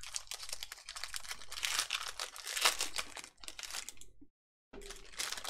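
Foil trading-card pack wrapper crinkling and tearing as it is worked open by hand, in quick dense crackles. The audio drops out completely for a moment about four seconds in.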